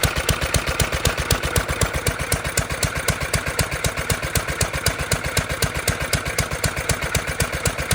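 1934 International Harvester LA single-cylinder stationary engine running at a steady speed, its exhaust beats coming in an even, rapid rhythm. It is running smoothly again after a fuel line change.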